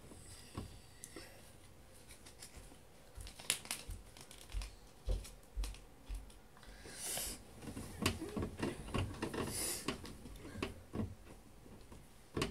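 Trading cards and the pages of a card binder being handled: rustling and crinkling with scattered light taps and clicks, and louder bursts of rustling about seven and nine seconds in.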